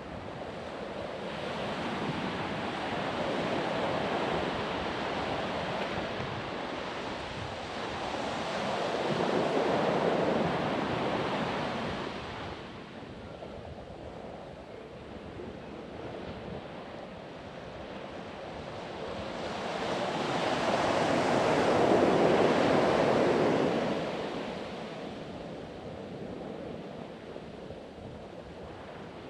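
Ocean surf breaking on a beach, the wash of the waves swelling and easing three times, loudest about three-quarters of the way through.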